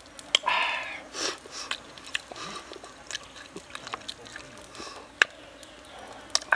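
Eating sounds: chewing and breathing in short bursts, with sharp clicks of wooden chopsticks against a wooden cup. The loudest click comes about five seconds in.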